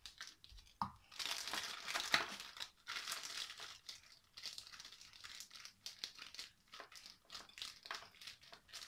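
Clear plastic piping bag full of churros dough crinkling and rustling as it is handled and squeezed, loudest in the first few seconds, then lighter crackles.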